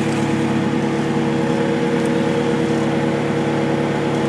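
Bobcat S300 skid steer's Kubota diesel engine running at a steady speed.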